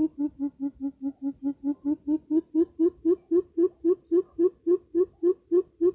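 Greater coucal call played from a bird-trapping loudspeaker: a long, even run of deep hoots, about four a second, dipping slightly in pitch near the start and then rising a little and holding steady.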